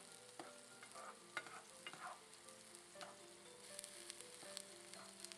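Diced bell peppers and red onion sautéing in butter in a skillet: a faint, steady sizzle, with a spatula stirring and clicking against the pan every second or so.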